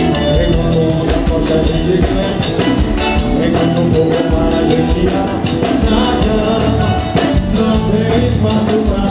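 Live forró band music at full volume: an accordion plays the melody over a steady drum and bass beat.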